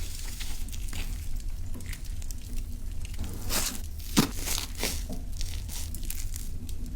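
Crinkling and tearing handling sounds, with a few sharper taps a little past the middle.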